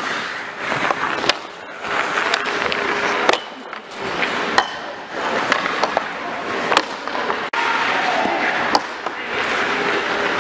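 Ice hockey skates scraping and carving on rink ice, with repeated sharp clacks of sticks and puck striking sticks, pads and boards.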